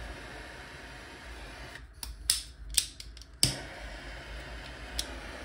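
Gas torch hissing steadily while heating a joint for silver soldering. About two seconds in the hiss drops away, there is a run of sharp clicks, and about three and a half seconds in the hiss comes back fuller and keeps running.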